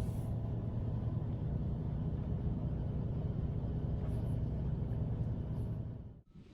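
Steady low rumble that fades out about six seconds in.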